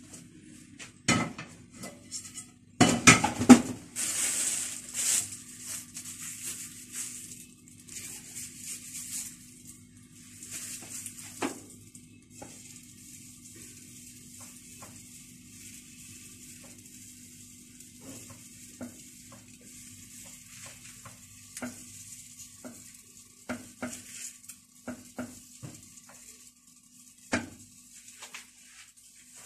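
A nonstick frying pan clattering against a gas stove's grate a few times in the first few seconds. Then kunafa batter sizzles softly as it is piped in thin streams into the hot pan, under a steady low hum, with a few light knocks.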